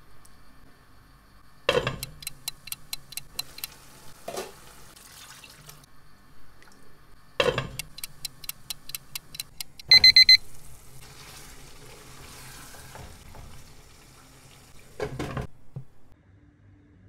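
A clock ticking quickly in two short runs, each begun by a knock, then a loud alarm-clock ring about ten seconds in, standing for an hour of simmering. A dull thud near the end.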